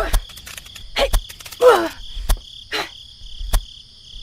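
A steady high-pitched buzz runs throughout, under sharp clicks or knocks that come a few times a second and several short calls that fall in pitch.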